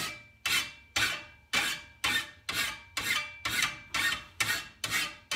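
Hand file sharpening the steel grass blade of a Husqvarna 525RX brushcutter held in a bench vise: steady rasping strokes, about two a second, each starting sharply and fading, with a faint metallic ring from the blade.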